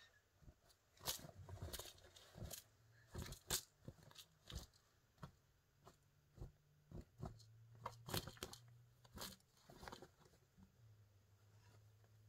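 Faint rustling and scratching of a fabric shopping bag as a kitten moves and pounces inside it: irregular short crackles and taps, about two or three a second, thinning out near the end.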